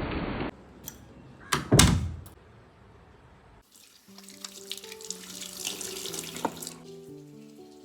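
Two sharp knocks, then a kitchen tap running into a sink for about three seconds before it shuts off, over soft background music.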